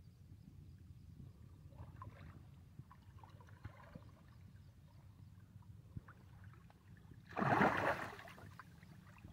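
A loud splash of water about seven and a half seconds in, lasting under a second, from a hooked rohu thrashing at the surface in shallow water. Before it there is only a low steady rumble.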